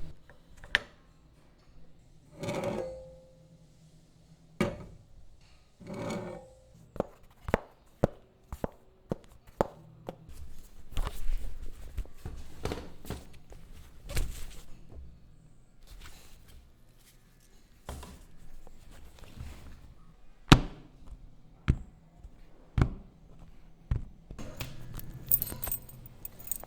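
A string of separate knocks, clicks and thuds at irregular spacing, as objects are handled for foley recording. Two short scraping rustles come a few seconds in, and metallic jingling like keys starts near the end.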